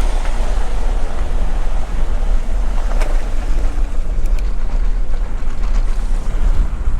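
Steady low rumble of a semi truck's running diesel engine, with a single sharp click about three seconds in.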